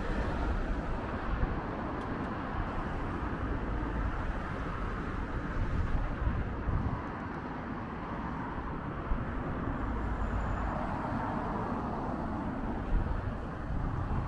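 City street traffic: a steady hum and low rumble of passing vehicles, louder for a moment about six seconds in.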